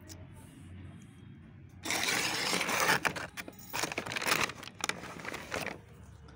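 A brown paper mailer bag being torn open and rustled by hand, starting about two seconds in: several seconds of loud ripping and crinkling paper with sharp crackles, dying down near the end.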